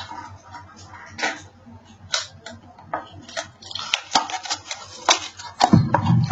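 Hands handling a small cardboard and plastic package: a string of sharp clicks and taps, a burst of rustling about four seconds in, and a heavier low thump near the end.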